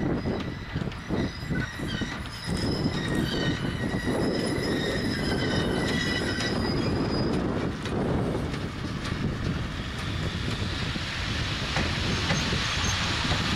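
PKP Cargo ET41 twin-section electric locomotive running light past, its wheels squealing in several high tones and knocking over the rails, over a low rumble. The squeal dies away about seven seconds in, leaving a steady rushing noise that grows louder near the end.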